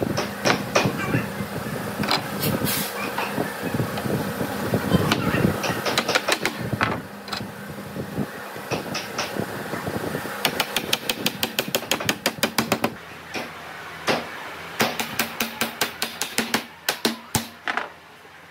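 Wooden knocks and taps as boards are fitted into a grooved wooden frame and tapped home, with busy clatter at first and two runs of quick light taps, about five a second, in the second half.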